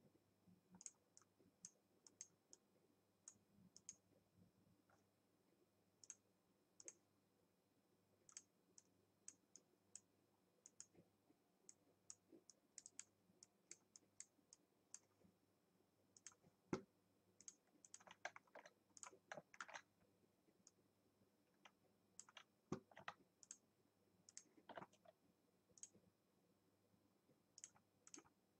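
Faint, irregular clicking of a computer mouse and keyboard while drawing with a pen tool, with a quick run of clicks about two-thirds of the way through and a few louder knocks.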